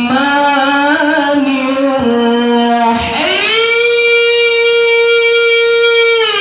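A man reciting the Quran in the melodic, high-voiced qori style. He sings ornamented, wavering notes, then about halfway through climbs to a high note and holds it steady for about three seconds before it turns down.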